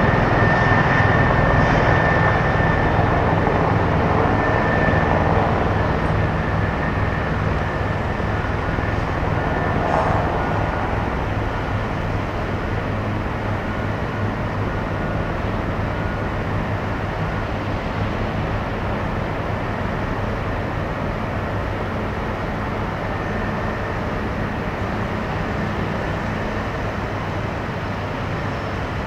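Steady low drone of heavy engines running, with a faint high whine over it for the first few seconds.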